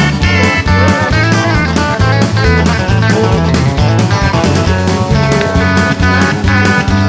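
Background music: a guitar-led track with a steady bass and drum beat and a bending lead guitar line.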